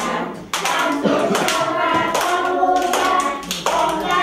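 A group of young children singing a song together while clapping their hands along to it.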